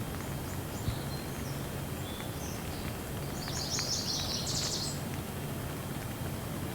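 Steady gentle rain with scattered drops and small birds chirping. A quick burst of high twittering about halfway through is the loudest part.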